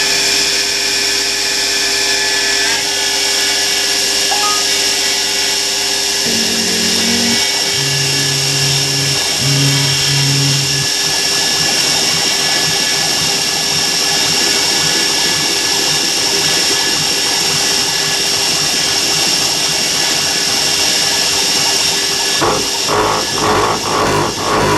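CNC mini mill's spindle running steadily with a high whine while a center drill spots holes in aluminium. Between about 6 and 11 seconds the axis motors hum in short on-off stretches as the table moves to position, and about two seconds before the end the center drill bites into the metal with a rapid, rough chatter.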